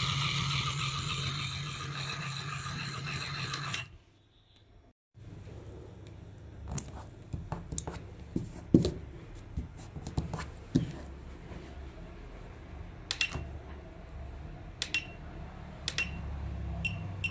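A small battery-toy motor and its plastic gearbox running steadily, cutting off abruptly about four seconds in. After a moment of near silence come scattered light clicks and knocks, the loudest a little before the middle.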